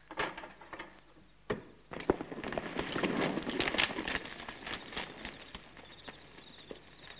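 A few sharp knocks as a rod is worked against a barred window, the loudest about two seconds in, then a dense clatter of horses' hooves and crashing brush as a band of riders goes by, peaking in the middle and fading out near the end.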